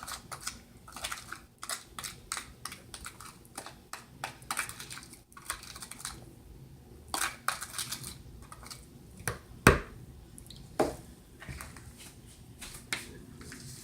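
A utensil scraping and clicking against a mixing bowl as a creamed shortening-and-sugar batter is scraped in with the dry flour mixture. There are many short scrapes and taps, with a sharp knock near the middle and another a second later.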